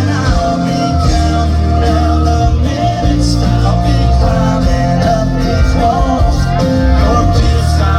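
Live country band playing the song through a concert sound system, loud and continuous.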